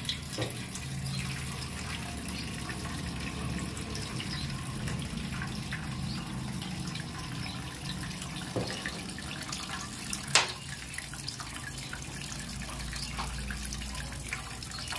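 Used two-stroke (TT) oil, flushed through a motorcycle engine, drains from the crankcase drain hole in a steady stream, splashing into a metal basin already holding dark, dirty oil. A sharp click comes about ten seconds in.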